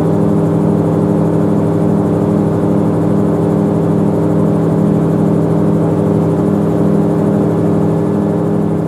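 Magni Gyro Orion M24 gyroplane's engine and pusher propeller running at a steady cruise in flight, a loud, even drone heard from inside the enclosed cabin.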